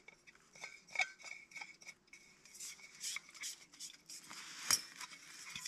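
Light metal clinks, rattles and scrapes of a camping cook pot and gas stove kit being handled and unpacked: a string of small irregular clicks, with one sharper knock near the end.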